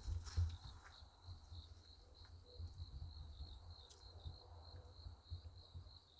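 Crickets chirping in a steady high trill, over a faint low rumble with a few soft bumps.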